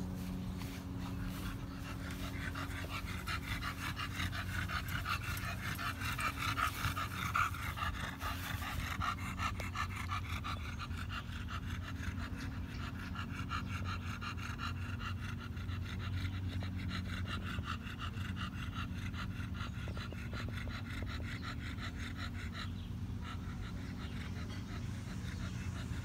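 A short-muzzled bully-type dog panting hard and fast with its tongue out, in a quick steady rhythm of breaths.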